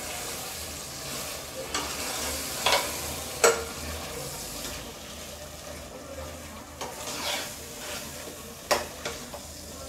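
Chicken and ground masala paste sizzling in oil in a pressure cooker while a spoon stirs it. The mix is being sautéed in the oil, and the spoon strikes the pot sharply about half a dozen times.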